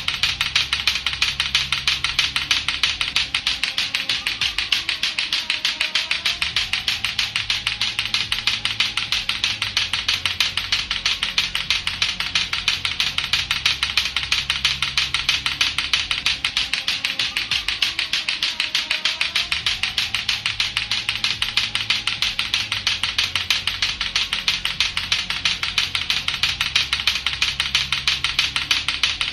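Latto-latto clacker toy, its two hard plastic balls on a string knocking together in a rapid, steady clacking that does not let up. A faint low sound repeats underneath.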